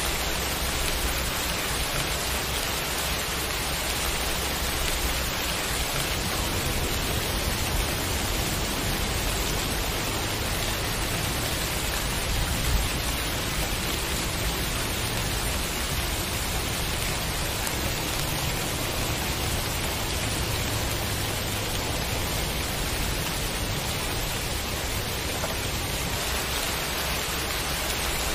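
Steady rain, an even hiss without a break, with one brief click about halfway through.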